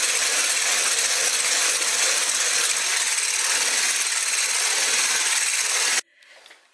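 Electric hand mixer running steadily, its beaters whipping cream in a bowl; it stops abruptly about six seconds in.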